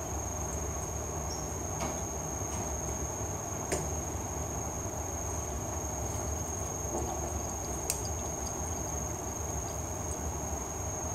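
Steady room noise: a low rumble with a constant high-pitched whine, broken by a few faint clicks.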